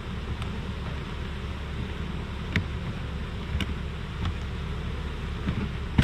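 Honeybees from a swarm buzzing around a hive box over a steady low rumble of highway traffic, with a few short sharp clicks.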